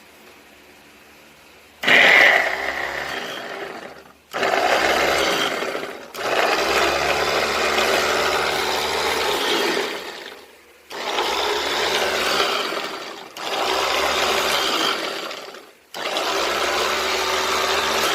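Electric food chopper's motor run in six short bursts of two to four seconds each, each starting suddenly and winding down in the pauses between. The first burst, about two seconds in, is the loudest.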